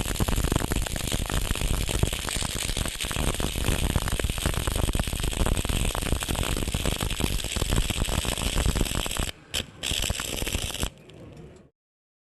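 Stick (electrode) welding arc crackling steadily. About nine seconds in the arc breaks off, flickers back briefly, burns for about another second and stops.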